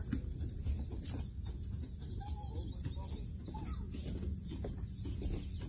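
Outdoor wind ambience: a steady low rumble of wind on the microphone while walking, with light footsteps on a wooden boardwalk and a few faint short calls in the background.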